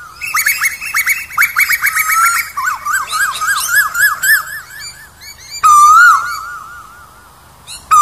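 Asian koel calling: a fast run of short, sharp notes, then a series of repeated notes climbing in pitch. A single loud, wavering call comes about six seconds in, and another begins at the very end.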